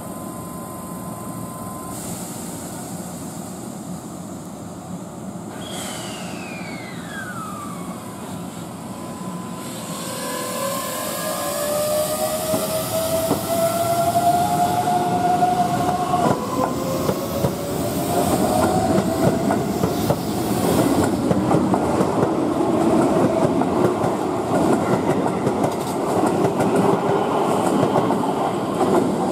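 Keihan 2400-series electric train accelerating: its motors whine, rising in pitch, dropping back about halfway and rising again. The rumble and clatter of its wheels on the rails grows louder and stays loud as the cars go by.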